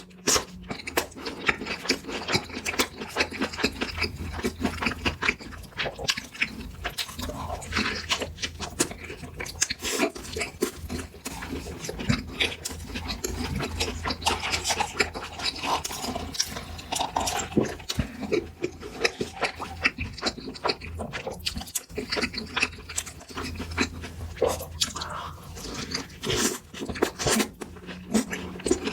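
Close-miked chewing and biting of a burger: a dense, irregular run of wet mouth smacks and soft crunches.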